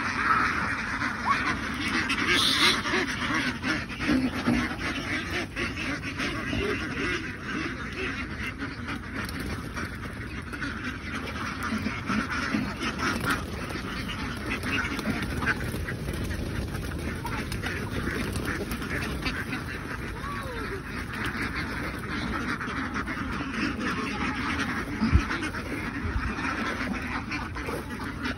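A large flock of domestic ducks quacking together, a continuous overlapping chorus. A single short knock is heard near the end.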